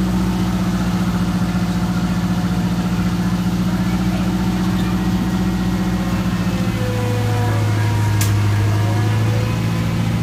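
Ride-on miniature train locomotive's engine running as the train pulls away, a steady pulsing hum whose note drops lower about seven seconds in. A single sharp click comes about eight seconds in.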